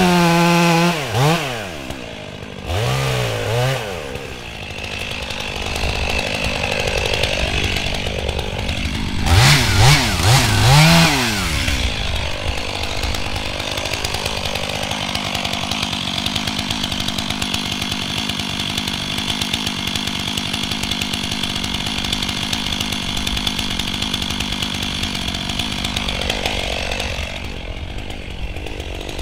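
Stihl chainsaw revving up and down in several short bursts, then running at a steady pitch for about ten seconds before dying away near the end.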